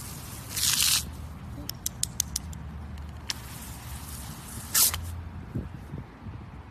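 Short hissing spurts of water from a garden hose pistol-grip spray nozzle, one near the start and another just before the end, with a few sharp clicks in between, over a low rumble.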